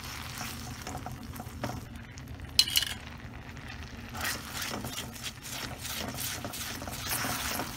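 A utensil stirring and scraping thick gochujang sauce around a pan as it heats towards the boil, with a sharp clink against the pan about two and a half seconds in.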